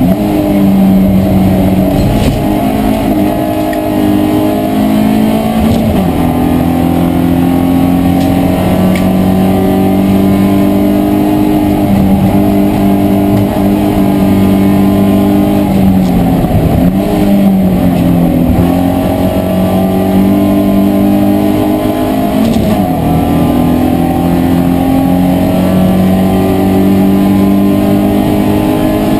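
BMW E36 318iS race car's four-cylinder engine heard from inside the cabin, running at high revs under load. Its pitch climbs steadily and falls back several times as it works through the gears.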